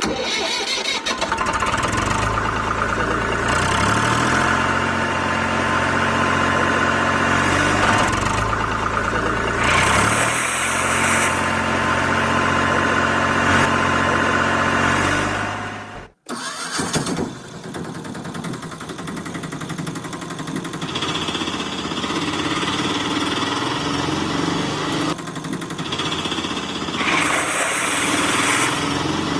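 Engine sound effect, a tractor engine running and revving, its pitch stepping up and down. It cuts out briefly about halfway through, and a different, lighter engine sound follows.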